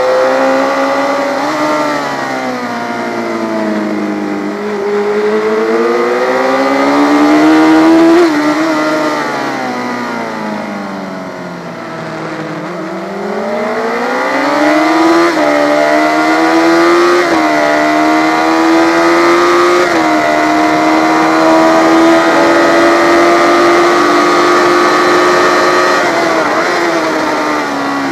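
Yamaha FZ600 racing motorcycle's inline-four engine at full race pace, revs rising and falling through the corners. Short drops in pitch mark the upshifts, and two longer falls come under braking. For the last several seconds the engine is held near the top of its revs.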